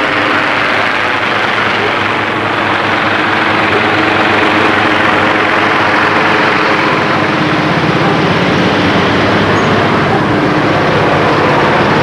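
Police helicopter hovering low overhead, its rotor and engine making a loud, steady drone with a constant hum under it.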